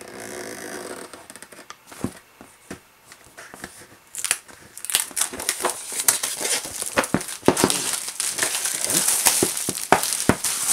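Cellophane shrink-wrap on a cardboard puzzle box being slit with a small blade, giving scattered scratches and clicks. From about four seconds in, the wrap is pulled off and crumpled, crinkling and crackling steadily.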